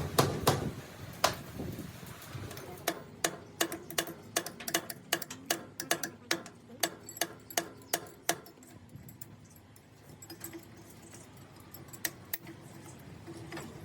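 A run of sharp metallic taps or clicks, about three a second for some five seconds, then a pause and two more taps near the end, from tool work on metal.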